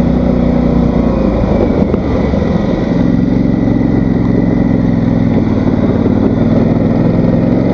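Polaris Sportsman 850 ATV's parallel-twin engine running under way. Its note wavers about a second in, then holds steady.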